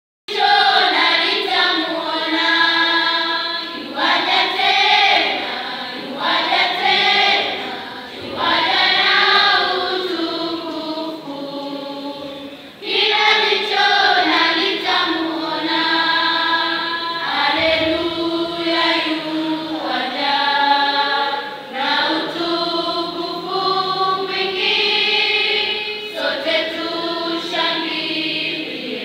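Children's choir singing a song in several-voice harmony, the phrases rising and falling, with a short break about twelve seconds in before the singing picks up again.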